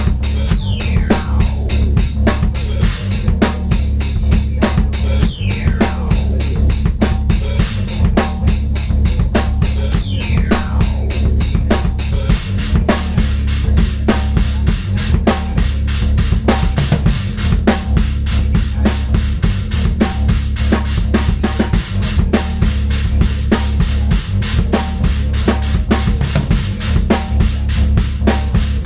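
Drum kit played in a fast, dense improvisation over a sampled backing with a steady low drone. In the first twelve seconds, three falling swoops from the samples sound, about five seconds apart.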